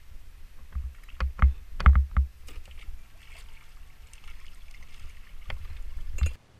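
A run of knocks and thumps, loudest about two seconds in, then water splashing as a hooked puppy drum (juvenile red drum) thrashes at the surface and is netted beside a kayak. The sound cuts off suddenly near the end.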